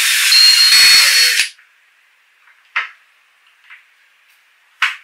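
Cordless drill running at speed, boring a pilot hole into a laminated fir board, with a steady high motor whine; it stops about a second and a half in. Then two short, sharp clicks, one near the middle and one just before the end.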